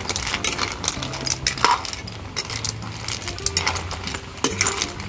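Irregular clinking and clicking of hard objects in a cooking pot, with soft background music underneath.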